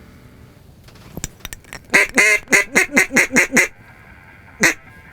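Mallard duck call blown in a descending hen-mallard greeting: a fast run of about seven loud quacks, each dropping in pitch, followed by a single quack about a second later.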